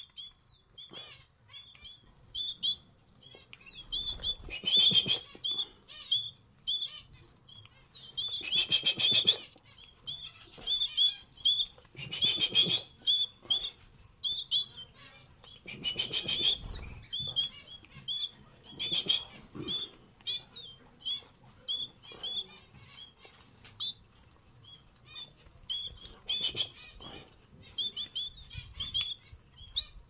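Two canaries begging to be hand-fed: rapid, high-pitched chirping calls throughout, with several louder bursts of wing fluttering.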